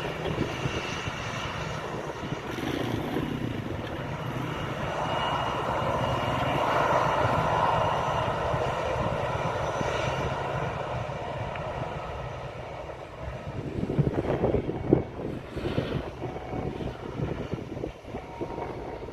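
Airliner engines at take-off power, passing by: a steady high whine over a broad rush that swells and then fades away. From about fourteen seconds in, strong gusting wind buffets the microphone.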